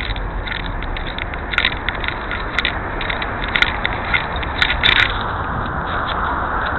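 Handheld phone microphone being handled while walking: scattered scrapes and crackles from fingers and clothing rubbing the mic, over steady city street traffic noise. From about five seconds in the clicks give way to a smoother, steady rubbing hiss as the phone is covered.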